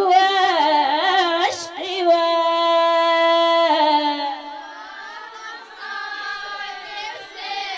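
A woman singing unaccompanied in a Jebli wedding song, a wavering, ornamented melody with one long held note about two seconds in. It then grows softer, with other voices behind it from about five seconds in.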